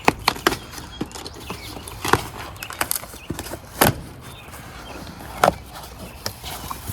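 Cardboard shipping box and packing being handled and opened, with irregular sharp knocks and crackles; the loudest comes about four seconds in.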